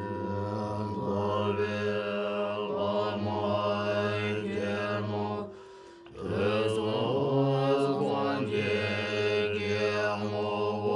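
Tibetan Buddhist chanting: low, droning voices reciting a mantra in long phrases, breaking off briefly about halfway and starting again. The faint ring of a singing bowl lingers underneath through the first half.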